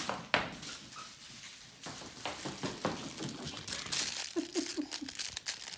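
Crinkle paper inside a puppy's plush toy crinkling and rustling in a quick, irregular string of clicks and scrapes as the puppy plays with it. Three brief squeaks come a little past the middle.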